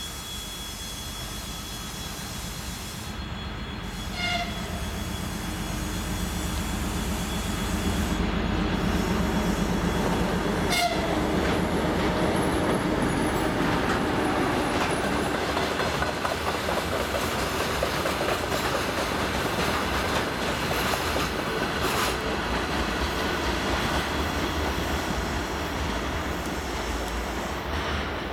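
M62 diesel locomotive's two-stroke V12 diesel engine running under load as it approaches and passes close by, its low drone growing louder over the first several seconds. It is followed by a string of covered hopper wagons rolling past with a steady rumble and clickety-clack of wheels over rail joints.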